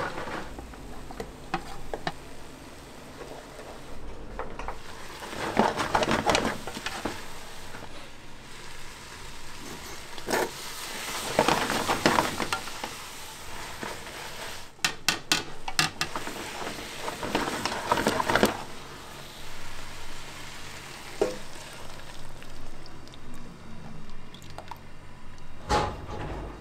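Kitchen food preparation: a utensil stirring food in intermittent bursts of a second or two, with a few sharp clicks and clinks of utensils. The sharpest is a quick run of clicks about halfway through.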